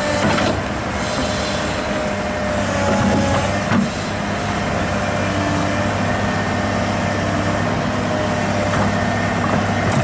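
Diesel engine of a Komatsu PC200-8 excavator running steadily, with short knocks at the start and again about four seconds in.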